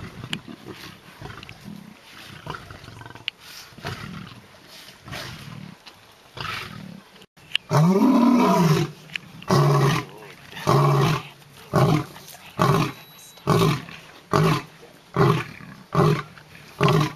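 Male lion roaring. Softer sounds come first, then about eight seconds in one long, loud roar, followed by a regular series of shorter grunting roars about one a second.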